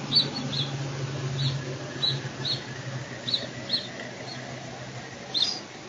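Short high chirps, about nine, coming at irregular intervals, over a steady low hum that stops about five and a half seconds in.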